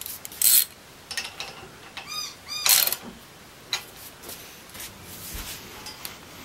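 Hands working on a steel chainsaw mill frame: scattered clicks, knocks and scraping clatter, with a quick run of small ringing ticks about two seconds in.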